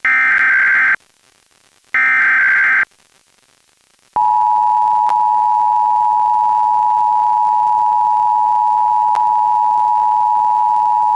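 Emergency Alert System tones from a radio broadcast. First come two SAME digital header bursts, each about a second of rapid electronic data tones, a second apart. About four seconds in, the steady two-tone EAS attention signal (853 and 960 Hz sounding together) starts and holds unchanged.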